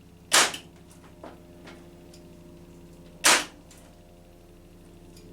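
Parkside PET 25 C2 electric nailer firing twice, about three seconds apart, each a sharp loud shot as it drives a brad nail into hardwood, with a couple of faint clicks between.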